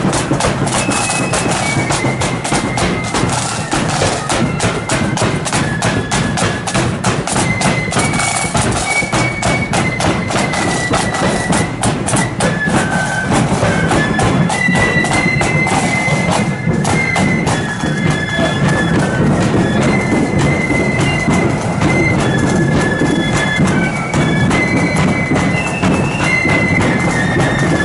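Marching band playing as it passes along the street: a loud melody on pipes over rapid snare and bass drum beats.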